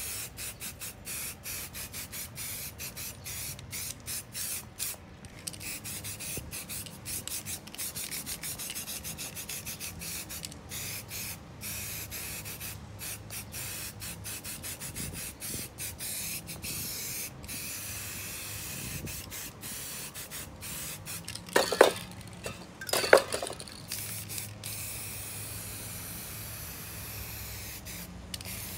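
Aerosol spray paint cans hissing in many short stop-start bursts, giving way to longer, steadier spraying in the later part. Two brief loud clatters come about a second apart just after the middle.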